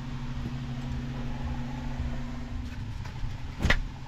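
A steady low hum, then a single sharp knock about three and a half seconds in as a settee cushion is handled in a sailboat cabin.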